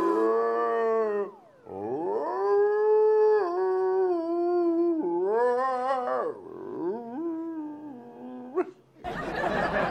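Dog-like howling: a string of long, wavering cries that slide up and down in pitch, with short breaks between them.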